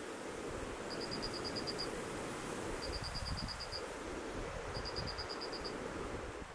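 Steady outdoor wind noise in a strong wind. Over it runs a high, rapid chirping of about eight quick pulses, repeating roughly every two seconds.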